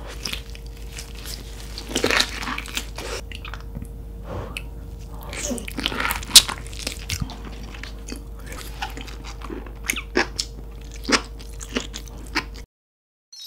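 Close-miked biting and chewing of cooked lobster meat, with irregular wet, crunchy mouth sounds. The sound cuts off abruptly about a second before the end.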